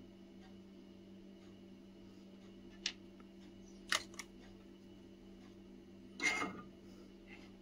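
Small handling sounds from bench work on a neckband earphone's wire: a few sharp clicks about three and four seconds in, then a longer scraping rustle about six seconds in, over a steady low hum.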